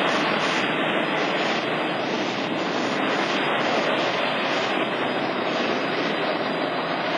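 Airbus A320-232's two IAE V2500 turbofan engines running as the jet rolls past on the runway: a loud, steady rushing noise that eases slightly near the end.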